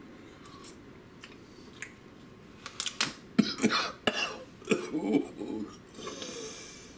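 A plastic spoon clicking against a plastic tub of burger marinade, then mouth sounds and short murmured hums as the marinade is tasted from the spoon. A faint breathy hiss near the end.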